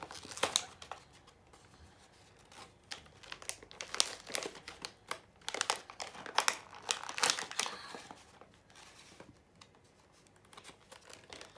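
Plastic toy packaging of a Ryan's World Gobsmax two-pack crinkling and crackling in irregular spells as it is prised open by hand, with a little tearing. The crackles thin out over the last few seconds.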